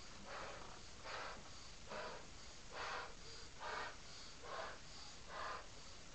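A person blowing up a large latex balloon by mouth: short, breathy puffs, about one a second, as each breath is drawn and pushed into the balloon.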